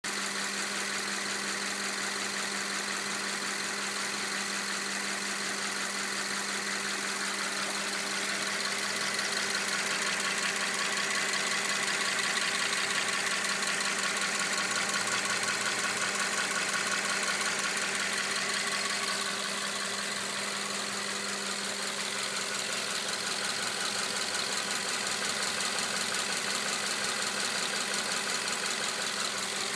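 Subaru FB20 2.0-litre flat-four boxer engine idling warm, with a fast, continuous clickity-clickity ticking and a slower, less frequent knock; the owner guesses the ticking is the valves and feels the knock has grown louder. The sound is somewhat louder for a stretch in the middle.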